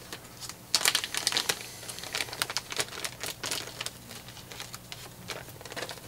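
Clear plastic parts bag crinkling in the hands, a run of irregular crackles starting about a second in.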